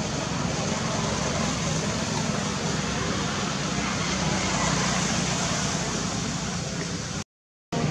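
Steady outdoor background noise, a constant hiss over a low hum, broken by a brief cut to silence near the end.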